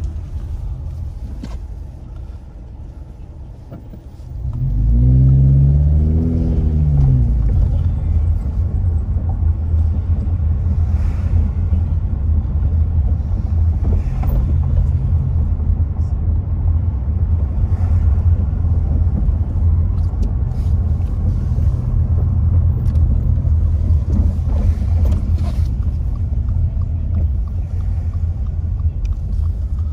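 Car driving slowly through town, heard from inside the cabin as a low rumble of engine and road. About four seconds in it gets much louder as the car pulls away, the engine note rising and falling over a couple of seconds, then a steady low rumble continues.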